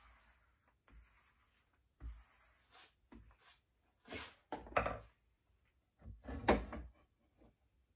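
Scattered knocks and clunks of hardwood strips and clamp parts being handled and pushed together on a wooden workbench during a glue-up. The loudest clusters come about four to five seconds in and again around six to seven seconds in.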